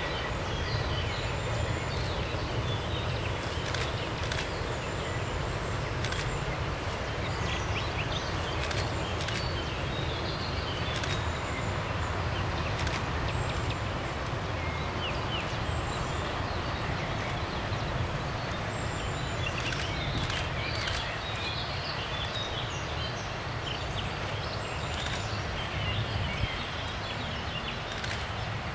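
Steady outdoor ambience: a constant low rumble and hiss, with birds chirping now and then.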